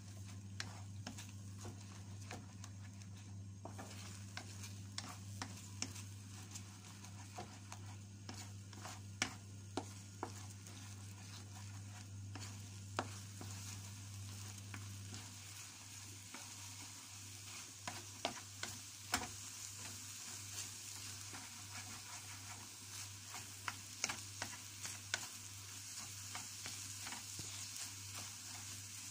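Beaten eggs sizzling in hot oil in a nonstick frying pan while a wooden spatula stirs and scrapes them, with irregular light clicks and taps of the spatula on the pan. A steady low hum runs underneath.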